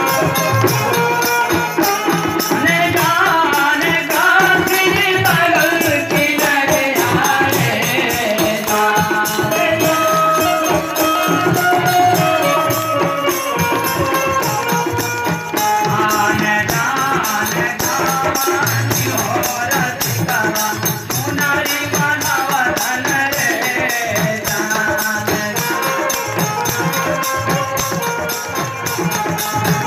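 A Hindu devotional bhajan sung by a child into a microphone, with a man playing a hand drum and a fast, steady jingling rattle keeping the beat.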